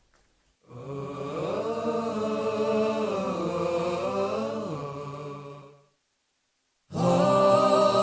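A vocal chant with slow, gliding changes of pitch, fading out about six seconds in. After a second of silence a louder vocal jingle starts.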